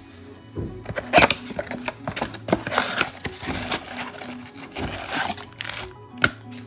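Trading-card boxes and blaster packs being handled and set down on a table: a scatter of short knocks and plastic-wrapper crinkles, over faint background music.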